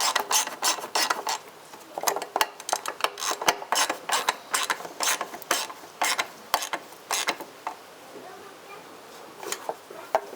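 Ratchet wrench clicking in short irregular runs while the mounting bolts of a license plate frame are tightened. The clicks thin out over the last few seconds.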